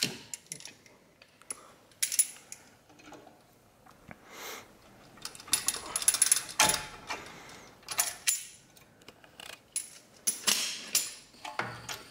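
Pliers gripping and working a brake-pad retaining pin out of a BMW 340i's brake caliper: irregular metallic clicks and short scrapes, some with a brief ringing.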